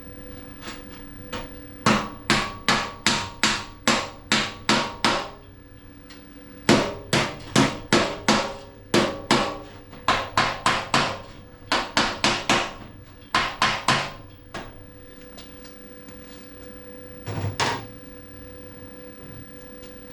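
Panel-beating hammer striking steel sheet metal backed by a dolly, in three runs of quick ringing taps about three a second, then one last blow near the end. The blows are tapping down the tack welds on a fender patch to relieve stress in them.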